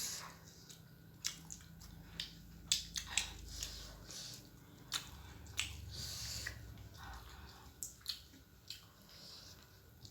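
A person eating close to the microphone: chewing and biting, with many short, irregular mouth clicks and smacks.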